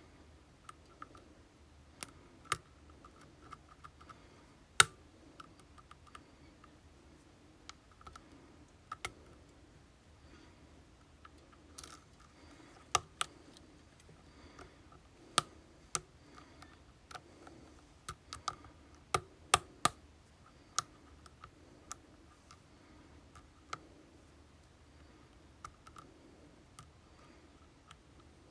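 Small, sharp clicks at irregular intervals, typical of lock picking tools working inside an Assa Twin Combi lock cylinder. A denser run of clicks comes about two-thirds of the way through.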